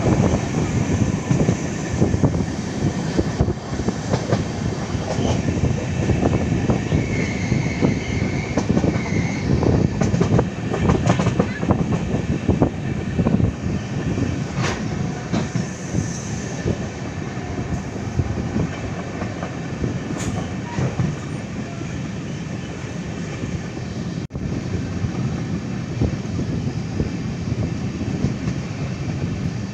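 LHB passenger coach running at speed, heard at an open window: a steady rumble and rush of wheels on rail and wind, with rapid clatter over the track. A brief thin whine comes about seven seconds in, and the clatter eases somewhat in the second half.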